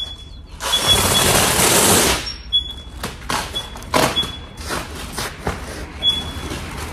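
Factory handling noise at a foil-faced insulation panel. A loud rasping hiss lasts about a second and a half, then scattered knocks, clicks and rustles follow.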